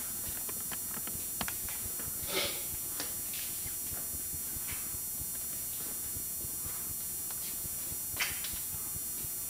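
Footsteps and scattered light knocks and clicks over a steady low rumble of camcorder handling noise, with a short scuff about two and a half seconds in and a sharper knock about eight seconds in.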